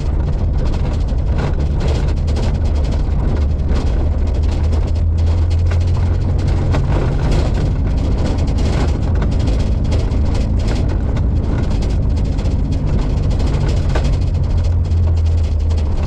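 Daihatsu Feroza's engine running with a steady low drone while driving a bumpy dirt track, heard from inside the cabin. Frequent short knocks and rattles come from the body over the ruts.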